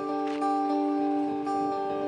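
Background music: sustained plucked acoustic guitar chords.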